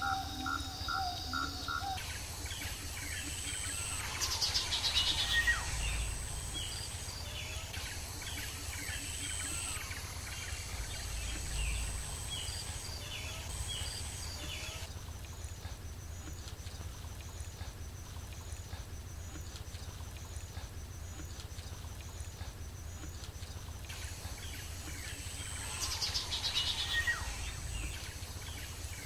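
Outdoor nature ambience: scattered bird chirps and calls over a steady low rumble, with two louder flurries of falling bird calls, about four seconds in and again near the end.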